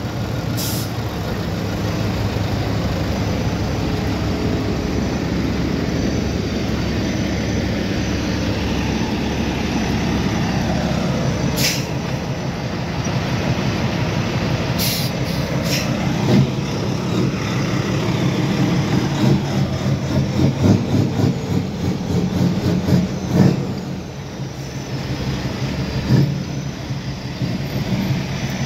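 Heavy trucks' diesel engines running, with a few short sharp hisses of air from the air brakes. The engine noise turns uneven and louder in the second half.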